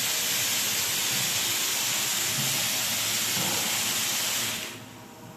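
A loud, steady hiss, like air or spray escaping, that cuts off fairly quickly near the end.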